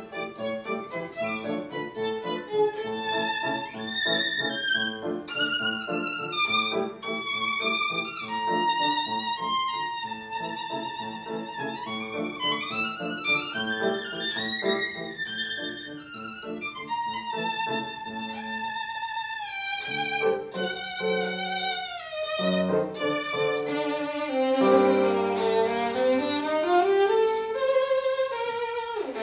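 Violin and grand piano playing a classical piece together: a solo violin melody that slides up and down in pitch, breaking into quicker figures in the last third, over piano chords.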